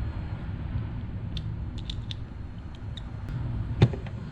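A few light clicks as a brake pad and the small metal parts of a minibike disc-brake caliper are handled, with one sharper click near the end. A steady low hum runs underneath.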